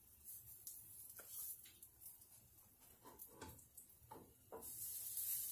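Faint scattered taps and knocks of kitchen items being handled. About four and a half seconds in, oil sizzling in a frying pan with pancake batter rises and carries on.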